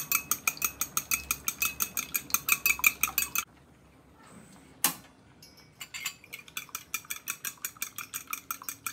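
A metal fork beating an egg in a glass bowl, clinking against the glass about five times a second, stopping about three and a half seconds in. A single sharp click comes near five seconds, the gas stove knob turned off, and a second run of similar rapid clinks follows from about six seconds.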